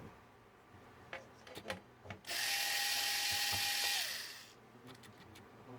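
Cordless electric screwdriver backing a screw out of the synthesizer's case: a few small clicks of handling, then about two seconds of steady motor whirring whose pitch drops as it stops.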